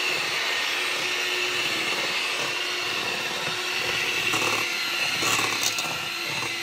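Electric hand mixer running steadily with a constant motor whine, its beaters whisking softened butter in a stainless steel bowl. A few brief knocks come about four and five seconds in.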